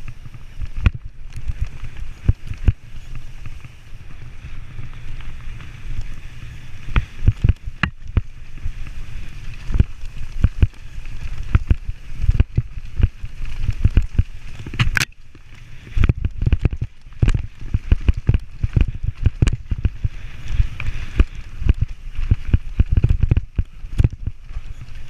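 Mountain bike clattering down a rough downhill trail: many sharp, irregular knocks and rattles as it jolts over bumps. Under them runs a constant low rumble of wind and tyre noise on a helmet-mounted microphone.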